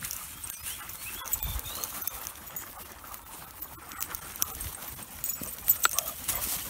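Quick footfalls and rustling of a person and dogs running through long grass, with scattered sharp clicks.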